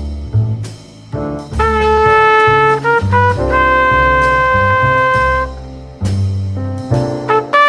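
Background music: a melody of long held notes, changing every second or two, over a low bass line, with a short drop in level about a second in.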